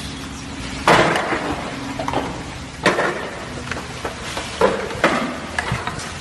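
A series of sudden heavy knocks and clanks, about five in all, over a low steady engine hum.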